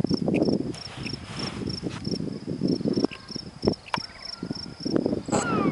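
Footsteps rustling through dry grass and brush, with an insect chirping steadily, about three chirps a second. Near the end a falling whine with several pitches starts.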